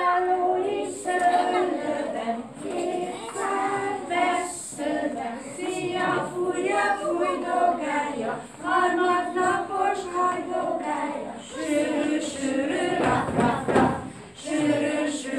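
Group of young children singing a song together in chorus. Their voices hold note after note, with a short break near the end.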